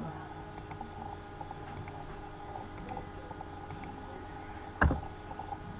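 Faint computer mouse clicks over a steady hum, with one louder sharp knock about five seconds in.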